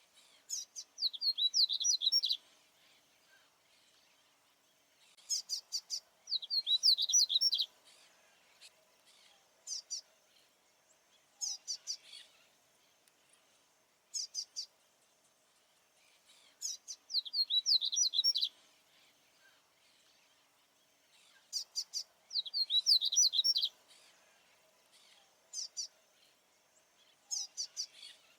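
A male papa-capim baianinho seedeater singing: repeated phrases of rapid, high, quickly falling notes about every five seconds, with short single notes in between.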